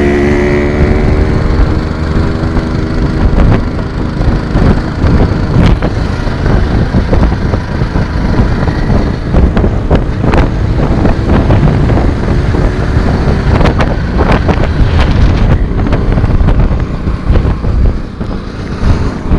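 Motorcycles riding along a road: engine running under heavy wind buffeting on the microphone, with irregular gusty thumps.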